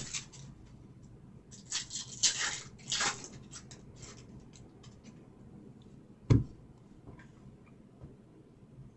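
Trading-card packs and cards being handled: a few short bursts of rustling and sliding about two to three seconds in, then a single sharp knock about six seconds in.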